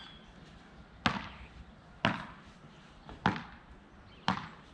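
Beach tennis paddles hitting the ball back and forth in a rally: four sharp hits about a second apart.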